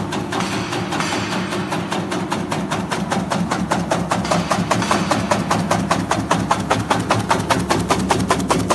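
Herb cutting machine running: its blade chops in a rapid, even rhythm of sharp clicks, several a second, over the steady hum of its motor.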